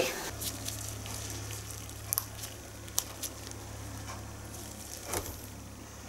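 A steady low hum with about three faint, short clicks and taps from small objects being handled on a wooden desk.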